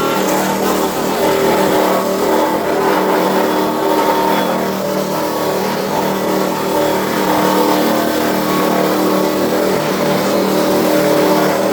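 Wood crusher that grates logs and offcuts into sawdust, running with a loud, steady mechanical hum that holds one pitch.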